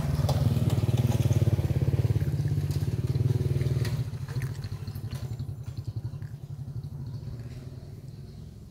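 A motor engine running with a low, steady drone that fades away over the second half.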